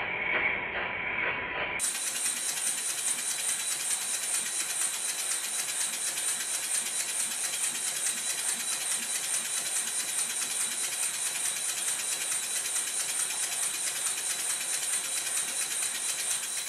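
Stuart Score twin-cylinder model steam engine running on compressed air, with its slide valves correctly timed: a fast, even train of hissing exhaust beats with the light clatter of the valve gear. About two seconds in the sound turns suddenly brighter and hissier.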